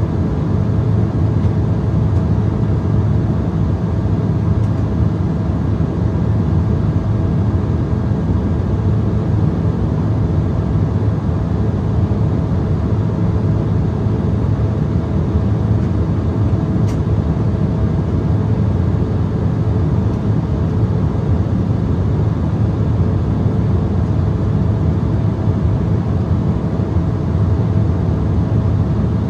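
Steady cabin noise inside an Embraer ERJ-170 airliner in flight: a low rumble of airflow and its two GE CF34-8E turbofan engines, with a faint steady whine.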